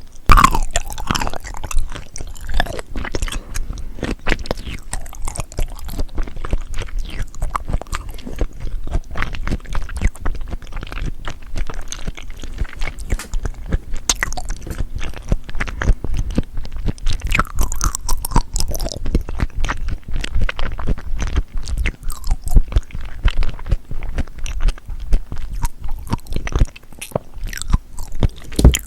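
Close-miked chewing of seafood, a steady run of small crunches and wet mouth clicks.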